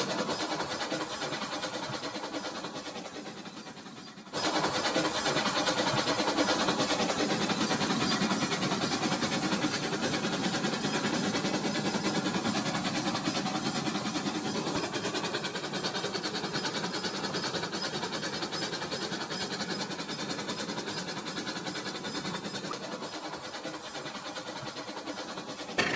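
Battery-powered toy train running along its plastic track, with a steady motor noise and wheel rattle. The sound fades over the first few seconds, then comes back suddenly louder about four seconds in and holds steady.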